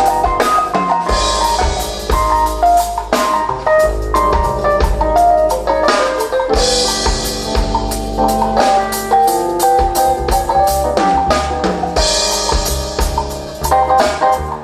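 A small band playing: drum kit with crashing cymbals, over piano and double bass.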